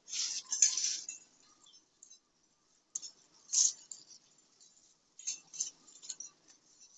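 Thai basil stems and leaves rustling as they are picked up from a pile and gathered into bunches by hand. The sound comes in short crackly bursts: one at the start, one a little past the middle, and a few close together near the end.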